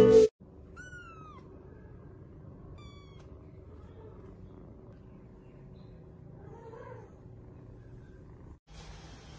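Kitten meowing: a thin, high mew that slides down in pitch about a second in, then a brief, shorter mew near three seconds in, over faint room noise.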